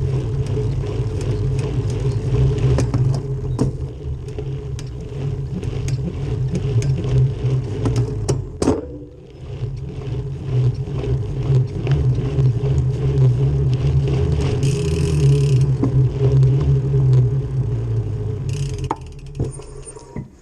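Bicycle drivetrain with a SRAM NX cassette running and clicking: irregular sharp clicks over a steady low rumble, which falls away near the end.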